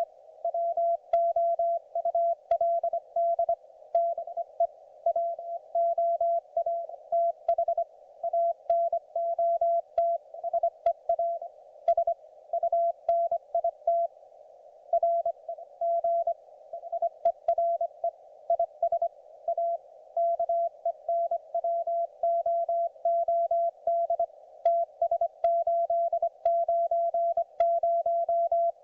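Morse code (CW) on the 40 m band from a YouKits HB-1B QRP transceiver: a single mid-pitched tone keyed on and off in quick dots and dashes, sent almost without a break. It sits over a narrow band of filtered band hiss, with faint clicks here and there.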